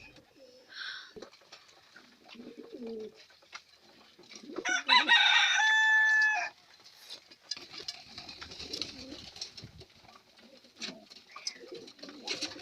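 Domestic pigeons cooing softly on and off, with a rooster crowing once, loudly, about five seconds in.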